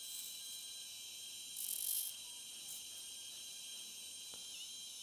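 Replacement brushless motor on an iFlight ProTek35HD quad spinning slowly in a motor test with a steady high-pitched whine. Short scratchy bursts, the loudest about two seconds in, come as a piece of wood is held against the spinning motor to check which way it turns.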